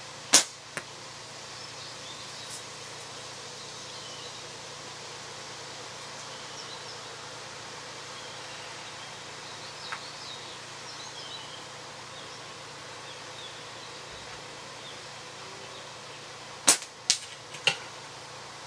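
Cleaver Pro slingshot shots. Just after the start comes a sharp snap of the bands on release, then a smaller smack of the ball striking the hanging target about half a second later. Near the end a second shot gives three sharp cracks in quick succession.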